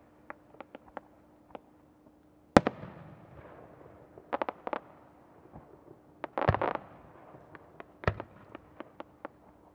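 Aerial firework shells bursting: a single sharp bang about two and a half seconds in is the loudest, a quick rattle of crackling reports follows around six and a half seconds, another bang comes near eight seconds, with scattered small pops in between.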